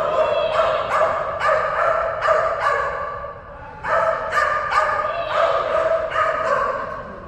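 Kerry Blue Terrier barking over and over in quick, high-pitched barks, about two or three a second. The barking comes in two long runs with a short break about halfway.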